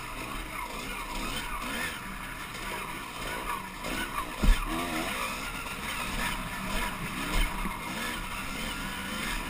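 Dirt bike engine running while riding a trail, its pitch rising and falling with the throttle, with one loud thump about halfway through.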